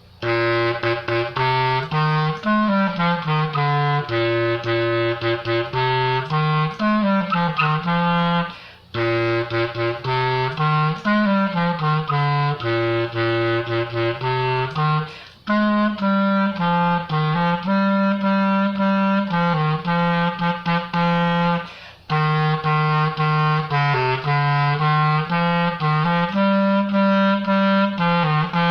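A single low-pitched wind instrument playing a simple melody unaccompanied, in four phrases with brief breaths between them.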